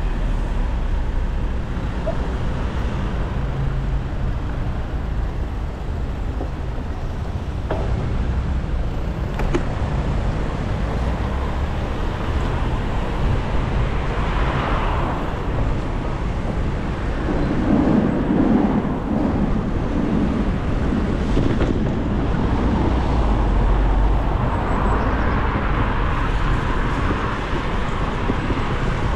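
Steady traffic and road noise heard from a bicycle riding on wet streets, swelling louder about halfway through and again near the end as vehicles pass.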